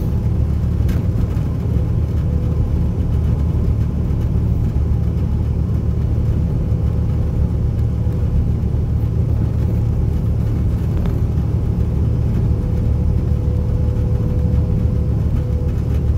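Peterbilt 579 semi truck's PACCAR MX-13 inline-six diesel running, a steady low drone with a faint constant hum above it.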